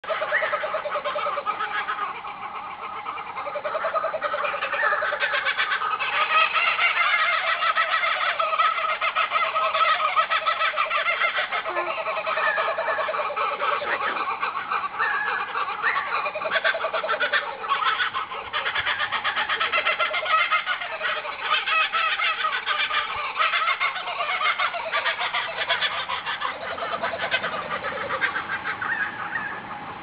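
A large flock of birds calling all at once in a dense, continuous chorus of overlapping calls, with lower, drawn-out calls of about a second each recurring every few seconds.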